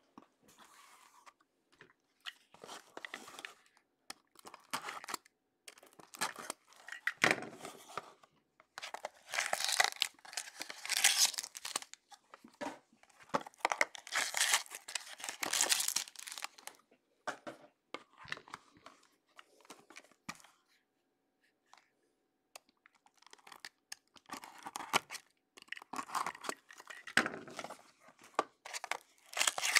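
Plastic wrap and cardboard packaging of a sealed trading-card box being crinkled and torn open by hand, in irregular bursts of ripping and rustling. A utility knife slits the wrap near the end.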